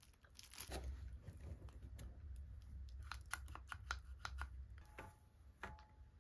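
Faint handling noise of plastic-wrapped kitchen utensils: packaging crinkling and a quick run of light clicks and taps, densest in the middle, as the tongs, scissors and a glass oil sprayer are picked up and set down on a grill pan.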